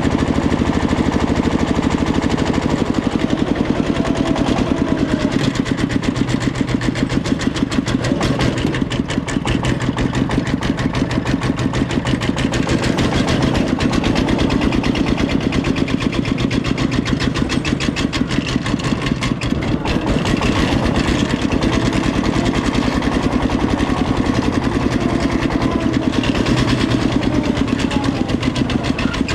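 Diesel engine running steadily with a fast, even beat.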